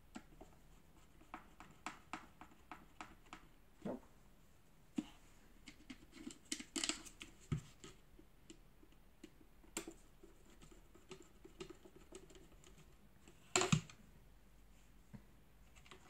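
Scattered light clicks, ticks and scrapes of hard plastic Dyson cyclone parts and a screwdriver being handled and pressed together, with a louder clack near the end.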